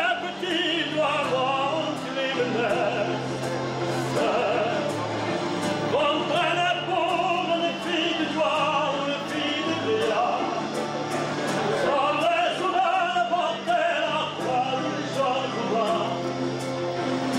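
A man singing solo into a handheld microphone. He sings long held notes with a wide vibrato, in a flowing melody without breaks.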